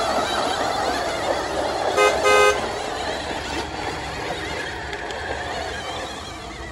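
A vehicle horn gives two short toots about two seconds in, over steady road-vehicle noise.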